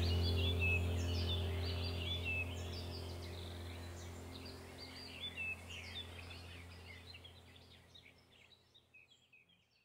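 Birds chirping over a steady low hum, the whole sound fading out over about seven seconds to silence.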